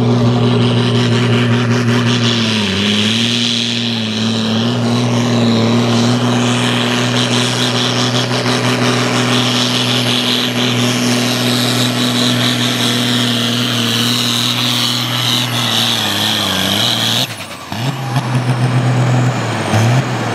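Valmet tractor's diesel engine running flat out under load as it pulls a weight sled. It holds a steady deep note with a high whine above it, dips briefly a few seconds in, then drops off suddenly about three seconds before the end and carries on at a lower, uneven note.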